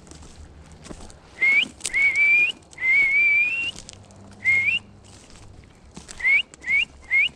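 A person whistling in short phrases. First comes a short rising whistle, then two longer notes that climb slowly, then another short rising one, and near the end three quick rising whistles in a row.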